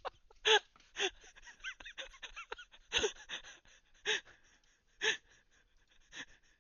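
A string of short, sharp gasp-like voice sounds, six of them about a second apart, with fainter squeaky chirps between the first few.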